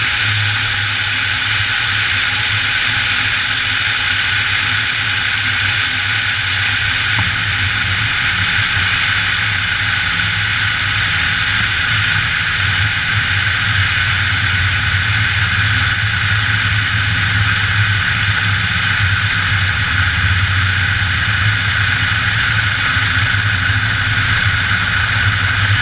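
Piper Warrior's four-cylinder Lycoming O-320 engine and propeller running at low power during the landing roll, a steady low drone under a constant hiss, growing slightly louder near the end.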